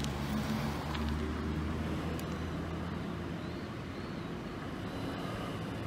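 Makita MEA3201M 32 cc two-stroke chainsaw engine idling steadily.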